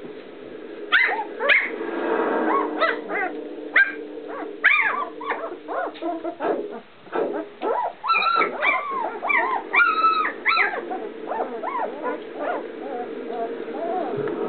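Newborn puppies squeaking and whimpering, a run of short, high, rising-and-falling cries that thin out after about eleven seconds, over a steady low hum.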